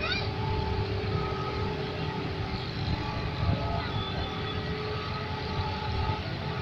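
Diesel locomotive running steadily: a low rumble with a constant engine hum.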